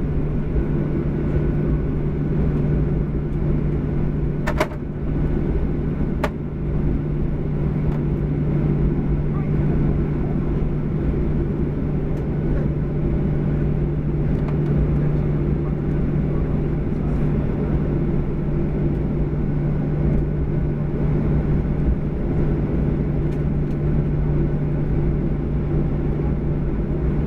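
Boeing 737-800 cabin during taxi, heard from a seat over the wing: the CFM56-7B engines at taxi power and the cabin air give a steady low rumble with a constant hum. Two brief clicks come about four and a half and six seconds in.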